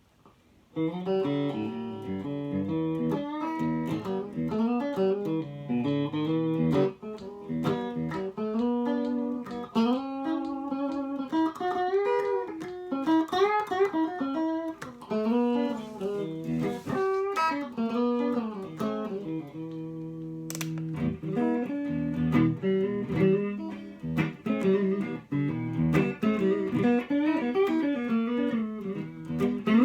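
EL Maya neck-through electric guitar played through a Tone King Gremlin amp, an improvised line of single notes and chords with string bends, starting about a second in.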